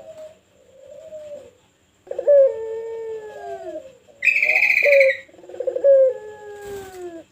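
Pelung dove cooing: long, drawn-out coos that fall in pitch, each about two seconds. A brief, shrill, high-pitched call breaks in about four seconds in. This is the dove's full 'gacor' song, used as a lure to set other turtle doves cooing.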